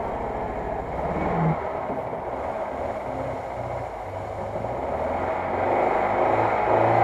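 UAZ-469 off-roader's engine running hard under load as it climbs a muddy slope. The revs and loudness rise from about five seconds in.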